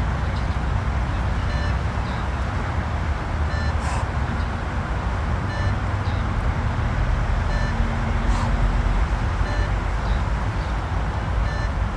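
Beep-test pacing beeps: short electronic beeps about every two seconds, each cueing a pull-up rep, over a steady low background rumble, with a couple of faint clicks.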